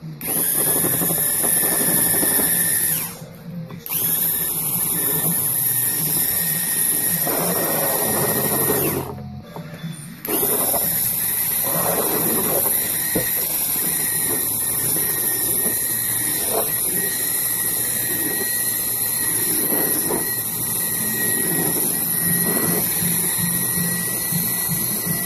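Electric mixer motor running steadily with a high whine while its beaters mix batter in a bowl under a splatter guard. It cuts out twice, briefly about 3 seconds in and for about a second around 9 seconds in, then runs on.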